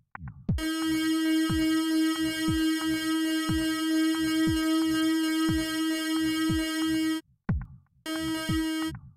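Live-coded electronic noise music: a synthesized kick drum, each hit dropping in pitch, pulses about twice a second under a loud, buzzing synth drone. The drone cuts off abruptly about seven seconds in and comes back briefly near the end.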